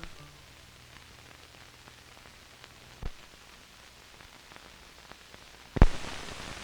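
Steady hiss and low hum of an old broadcast recording's soundtrack with no programme sound, broken by a short click about three seconds in and a sharp pop near the end, after which the hiss is louder.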